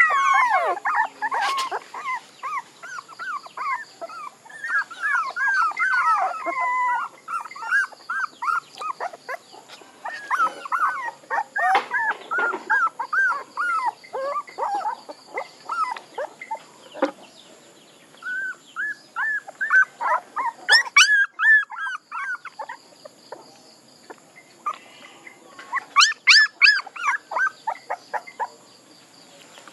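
Young puppies whining and whimpering: many short, high, arching cries in quick runs, broken by brief lulls.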